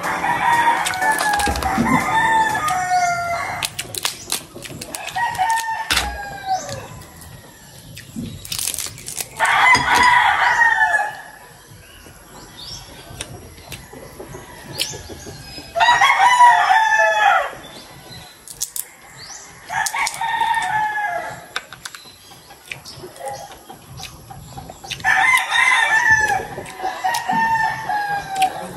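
A rooster crowing again and again, about five long crows, each falling in pitch at its end.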